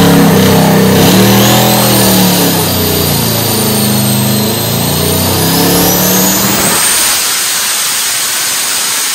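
Twin-turbocharged 406-cubic-inch LS V8 running hard on an engine dyno, its note wavering up and down over a high turbo whistle. About seven seconds in the deep engine note drops away, leaving the high whistle.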